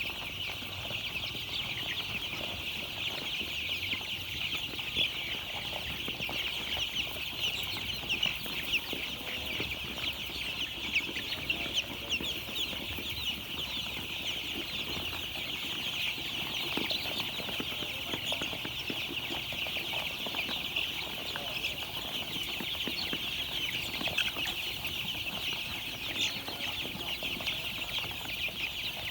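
A brood of many young chicks peeping all at once: a dense, continuous chorus of short, high cheeps.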